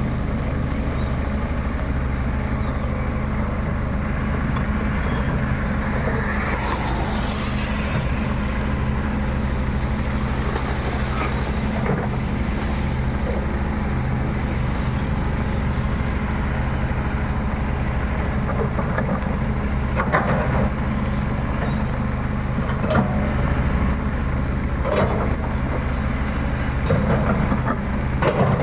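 Excavator's diesel engine running steadily, with a few short sharp knocks near the middle and toward the end.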